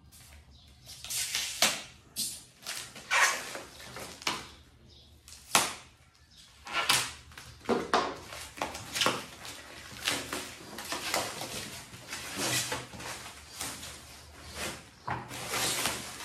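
Plastic packaging wrap being handled and pulled off by hand: irregular crinkling and rustling, with several sharp, louder crackles spread through.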